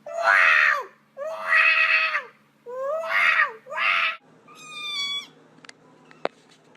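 A cat meowing loudly four times in a row, each long meow dropping in pitch at the end, then a higher, thinner meow. A sharp tap near the end.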